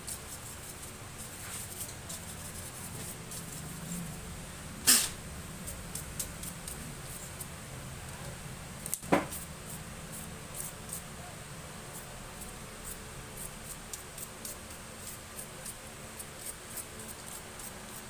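Short, light scratchy strokes of a small paintbrush's bristles sweeping dust off an open laptop's motherboard and cooling fan. There are two sharper clicks, about five and nine seconds in.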